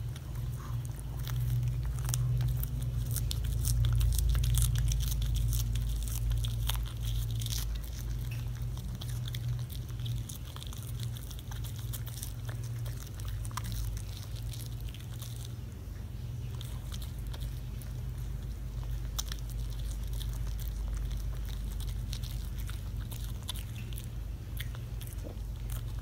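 Shih Tzu chewing a lettuce leaf: many irregular crisp crunches and bites over a steady low hum.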